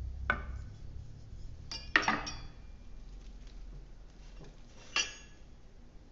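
Kitchenware knocking and clinking against a metal cooking pot as mint leaves are put in: three short clinks, the loudest about two seconds in.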